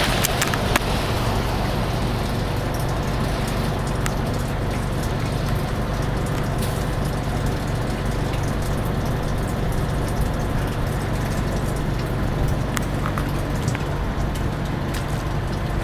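Steady low vehicle rumble with a faint hum, with scattered small clicks.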